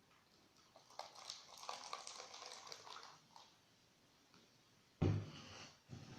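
Water pouring out through the spout of a Termolar thermos stopper for about two seconds, as a test of the repaired spout seal. About five seconds in comes a loud knock, and a smaller one near the end.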